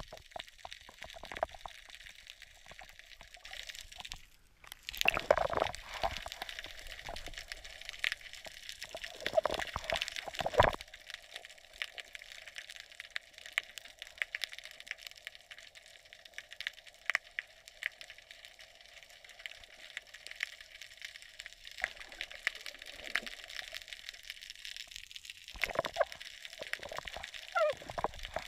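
Muffled underwater sound picked up by a GoPro hanging in the sea: water sloshing and gurgling around the camera, with many scattered clicks and crackles. Louder surges of water come about five seconds in, around ten seconds, and near the end.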